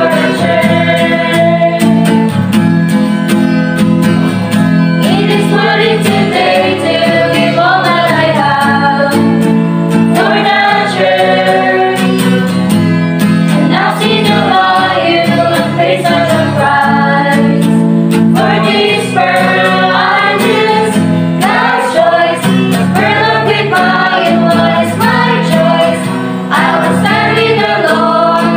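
Small group of young voices, female voices to the fore, singing a hymn in unison with a strummed acoustic guitar and ukulele accompaniment.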